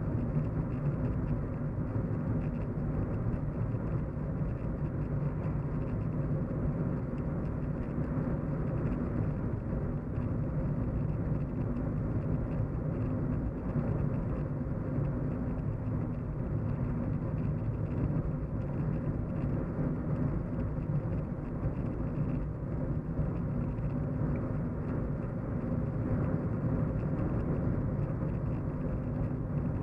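Steady low road and engine hum inside a moving car's cabin, with tyre noise and no sudden events.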